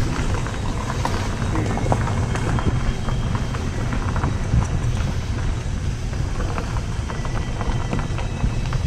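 Faint, steady high whistling tones at a few different pitches, of unknown source, over the low rumble of a car's engine.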